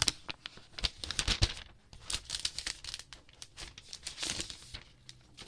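Clear plastic protective film being peeled off a tablet and handled: irregular crinkling and crackling with short rustles.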